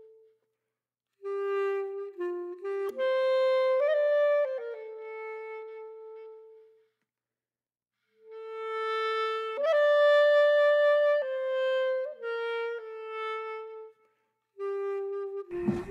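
Background music: a slow solo melody on a wind instrument, one held note at a time, in two phrases with a pause of a second or so between them.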